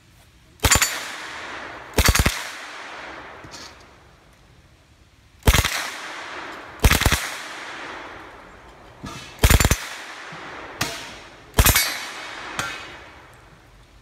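Submachine gun firing short bursts of fully automatic fire, about seven bursts a second or two apart, each a fraction of a second long, with an echo trailing off after each.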